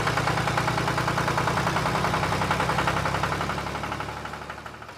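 Tractor engine chugging at a rapid, even beat, fading away over the last second or so.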